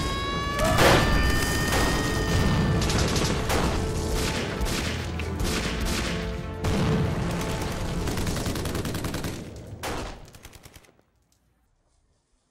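Rapid, sustained gunfire sound effects, a dense machine-gun-like fusillade that stops abruptly about eleven seconds in. Rising whistling tones sound over the first few seconds.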